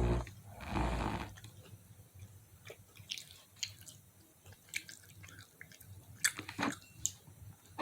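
A person chewing crispy fried chicken close to the microphone: two loud crunchy bites in the first second or so, then quieter chewing with scattered small wet clicks.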